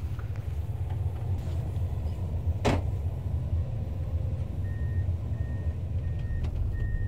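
Komatsu PC210 excavator's diesel engine running steadily, heard from inside the cab while the bucket digs, with one sharp knock about two and a half seconds in. From about the middle on, a high electronic beep repeats roughly one and a half times a second.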